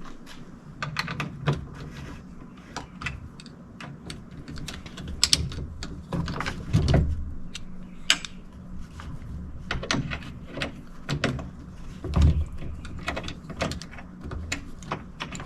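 Irregular clicks, taps and knocks of hand work on a Honda Talon door: screws and door panel parts being handled. Two heavier thumps stand out, one about halfway through and one later on.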